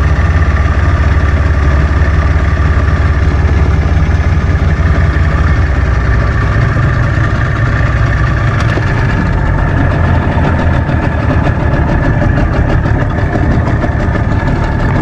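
Suzuki 15 hp outboard motor running steadily, pushing the small boat along; it drops a little in level about halfway through.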